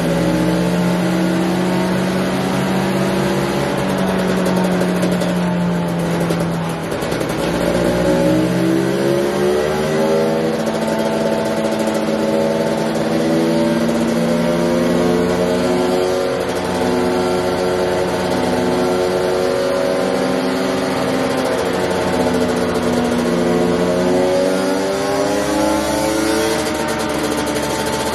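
2022 KTM 300 TPI single-cylinder two-stroke engine running under load on a dyno, on 60:1 premix with its oil-injection pump deleted. The revs sag briefly about seven seconds in, climb, hold steady, then climb again near the end.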